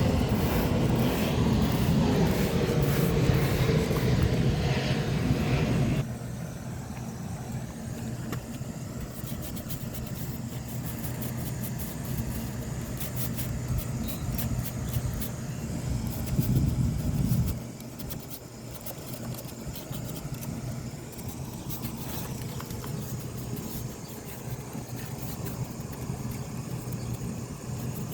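Garden hose spraying water onto a window air conditioner's coil, cutting off suddenly about six seconds in. A steady low hum continues after, with another short louder stretch about two-thirds of the way through.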